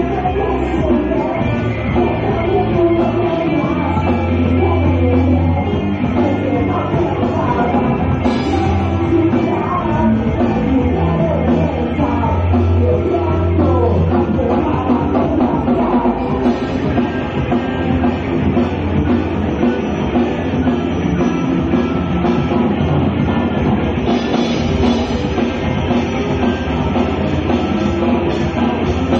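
A live rock band playing loud and without a break: electric guitars, bass and drum kit. The top end is cut off, as from a camera phone's microphone.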